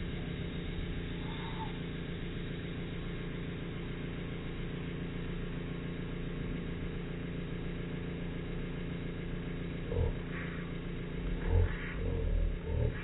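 Espresso machine's pump running as a steady low drone while a shot pours through a bottomless portafilter. Several low thumps and knocks come in the last three seconds.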